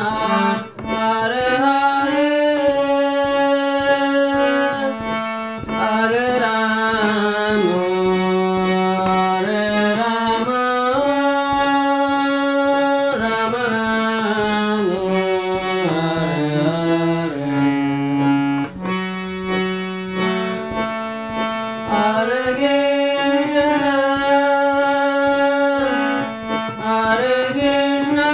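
Harmonium playing a slow devotional melody: reedy held notes that step up and down in pitch, with short breaks between phrases.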